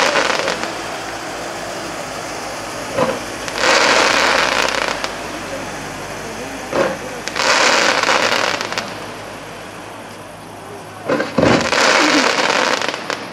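Fireworks shells bursting about every four seconds. Each is a sharp bang followed by a second or more of dense crackling from the glittering stars.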